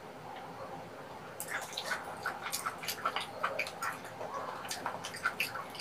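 Close-miked ASMR eating sounds: wet mouth clicks and smacks of chewing, starting about a second and a half in and following in quick, irregular succession.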